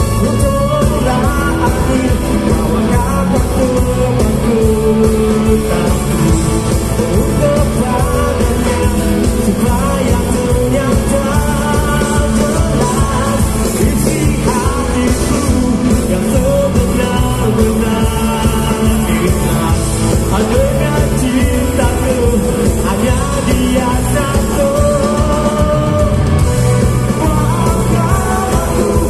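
Live rock band playing at full volume, drums, electric guitars and bass under a male lead vocal, heard from the audience.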